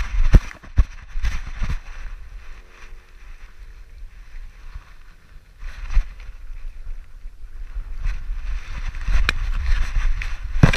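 Camera strapped to a running dog's back: a quick series of jolting thuds from its strides over a low wind rumble on the microphone. It goes quieter for a few seconds in the middle, and the thuds and rustling pick up again near the end.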